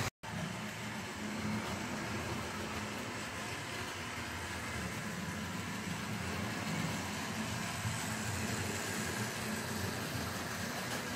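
Several model trains running on a layout: a steady whir and rumble of the locomotives' electric motors and wheels on the track. The sound cuts out for a moment at the very start.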